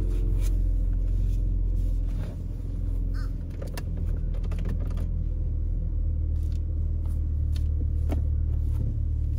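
Steady low rumble of an SUV driving, heard from inside the cabin, with scattered light clicks and knocks.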